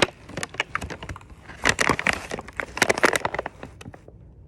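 Packaging crinkling and rustling as it is handled: a dense run of crackles, loudest in two stretches around two and three seconds in, dying away near the end.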